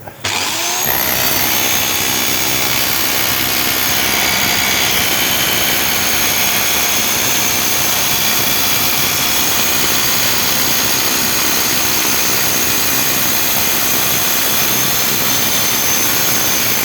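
Hammer drill with a chisel bit running continuously, chiselling built-up slag off the slats of a CNC plasma cutting table. Its whine rises as it starts, then it holds a loud, steady hammering rattle until it stops near the end.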